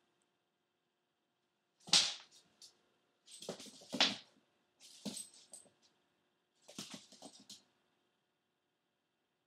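Maltipoo's claws skittering and scrabbling on a hardwood floor as it pounces and dashes after a laser dot, in four short bursts, the first and loudest about two seconds in.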